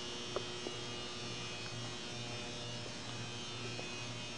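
Steady electrical hum with several held tones above it, and two faint ticks about half a second in.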